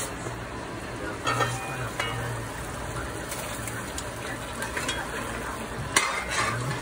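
Liquid bubbling at a boil in a cast-iron pot, stirred with a spoon that knocks against the pot a few times, loudest near the end. A low steady hum runs underneath.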